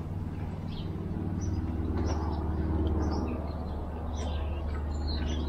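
Small birds chirping in short, scattered calls over a steady low hum.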